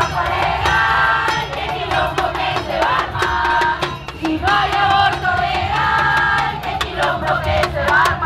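A crowd singing and chanting together in long held notes over beating drums, with many sharp percussion hits.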